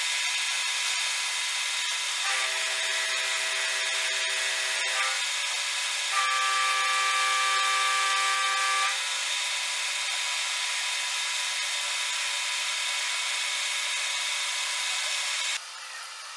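Metal lathe running, with its cutting tool turning a spinning metal workpiece held in the chuck: a steady machining noise. A pitched whine rises out of it twice, for a few seconds each time, and the noise drops off suddenly near the end.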